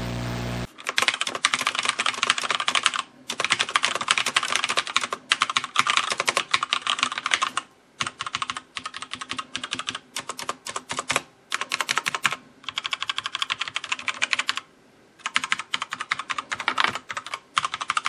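About half a second of static hiss, then fast typing on an Azio MGK L80 mechanical keyboard with Kailh Brown tactile switches. The keys make a rapid clack, clack, clack in runs broken by short pauses.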